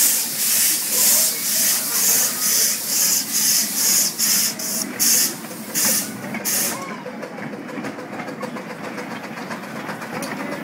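7¼-inch gauge live-steam locomotive pulling away, chuffing hissing steam about twice a second from its open cylinder drain cocks. About seven seconds in the hiss stops abruptly, leaving the steady rumble of the train rolling on the rails.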